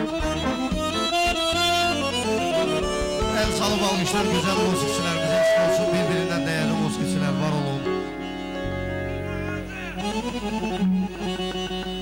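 Live band playing dance music led by an accordion, over keyboard and drums. The drum strokes drop out after the first few seconds, and the music thins to held notes over a low drone near the end.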